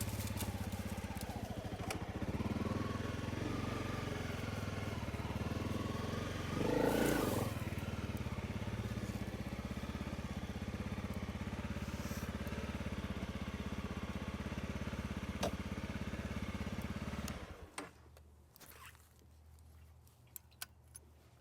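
Motorcycle engine running steadily, with a brief louder, noisier surge about seven seconds in. The engine sound stops abruptly about seventeen seconds in, leaving a faint hum and a few clicks.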